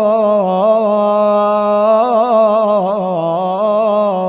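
A man's voice reciting the Quran in melodic tajweed style, drawing out one long vowel without a pause. The held note wavers up and down in ornamental turns, a little after the start and again in the second half.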